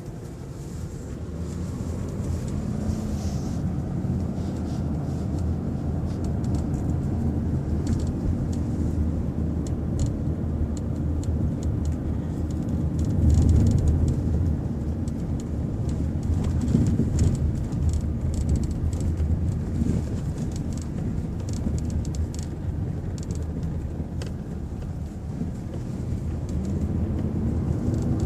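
Road and engine rumble inside a moving 1998 Lexus LS400, with irregular light clicks and rattles from the roof area that come and go.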